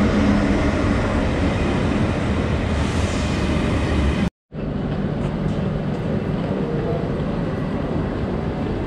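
ÖBB Railjet train giving a steady rumble with a low hum as it stands or runs at the station. An abrupt cut breaks it about four seconds in, and after it the same steady train noise goes on a little quieter.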